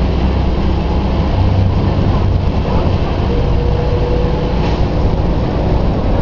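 Volvo B10M bus's inline-six diesel engine running steadily with a deep, even hum, with a faint high whine for about a second midway.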